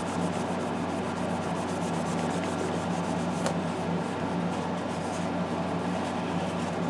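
Continuous scrubbing of a brush working paint thinner into the paint on a plastic model part, a steady rubbing over a low steady hum.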